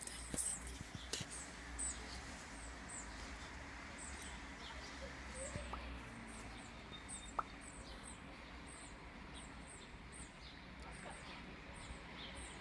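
A small bird repeating short high chirps about twice a second, over a steady low outdoor background.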